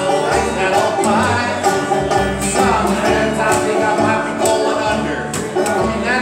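Bluegrass trio playing live on acoustic guitar, upright bass and banjo, with a man singing over a stepping bass line.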